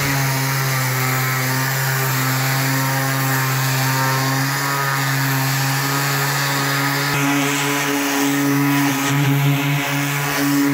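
Electric random orbital sander running steadily with its pad on a fiberglass boat hull, a constant hum that wavers a little in the last few seconds as it is moved across the surface.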